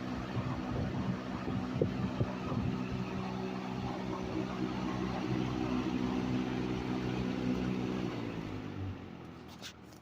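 1974 Kmart K-223 20-inch box fan, its McMillan motor driving a four-wing Lasco box-fan blade on high speed: a steady motor hum under a loud rush of air. About eight seconds in the motor cuts out; the hum drops in pitch and fades as the blade starts a long spin-down, with a couple of sharp clicks near the end.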